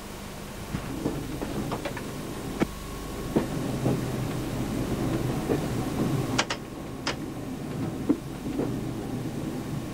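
Train running slowly with a low rumble and irregular clunks and sharp clicks from wheels and running gear. The sharpest pair of clicks comes about six and a half seconds in.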